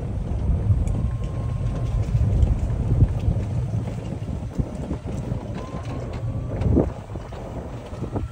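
A golf cart driving along a paved path: a steady low rumble with wind buffeting the microphone, and scattered knocks and rattles as it rolls over the paving.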